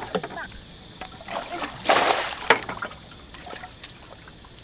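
Shallow muddy water splashing and sloshing as a black plastic bucket is pushed and tipped through it, loudest about two seconds in, followed by a sharp knock. A steady high buzz of insects runs underneath.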